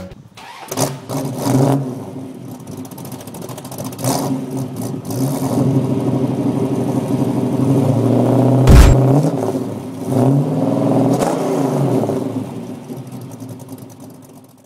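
Car engine revving and accelerating, its pitch rising and falling several times, with a heavy low thump about nine seconds in; it fades away near the end.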